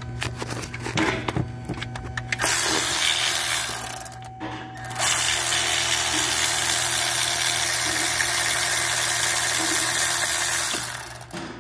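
A power tool running in two stretches, a short one of about two seconds and then a steady one of about six seconds that stops near the end, with a few clicks at the start.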